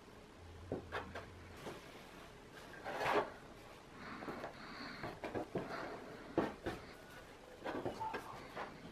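Stainless steel bench scraper chopping through bread dough and knocking and scraping on a wooden tabletop: irregular knocks and short scrapes, the loudest about three seconds in.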